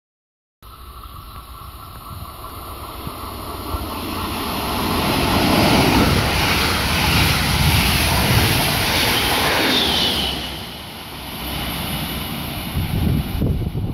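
A DB double-deck Regional-Express train hauled by an electric locomotive passing through the station: the rumble of wheels on rail builds to its loudest in the middle, with a brief falling high squeal about two-thirds through, then eases off and swells again near the end with a few rail-joint knocks.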